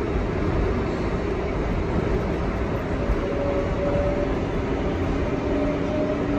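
Steady rumble of an R142A New York subway car riding along the track, heard from inside the car, with faint steady humming tones joining about three seconds in.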